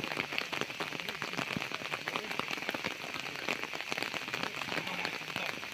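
Rain falling on an open umbrella close overhead: a steady, dense patter of small, irregular drop ticks.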